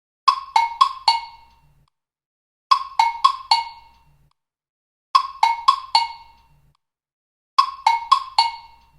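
TikTok ringtone playing on a loop: a quick phrase of four short pitched knocks, each dying away fast, repeated about every two and a half seconds, four times.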